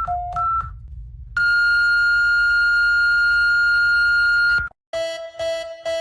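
Electronic emergency alert tones: a two-tone high-low beep pattern with a low rumble beneath ends just under a second in, then a long steady high alarm tone sounds and cuts off abruptly, then after a brief gap a different pulsing electronic tone starts at about two pulses a second.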